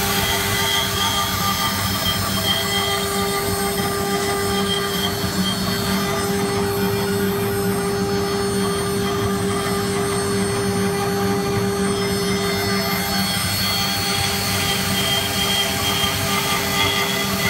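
1325 CNC wood router's spindle running at a steady whine while it carves a round wooden blank turning on the rotary axis, with a constant hum and cutting noise underneath.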